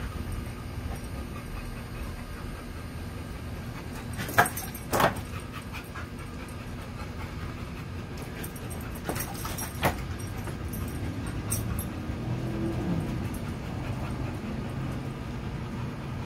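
Pit bull-type dog whining faintly, with a few sudden sharp sounds: two about four to five seconds in, two more near the middle, and one shortly after, over a steady low rumble.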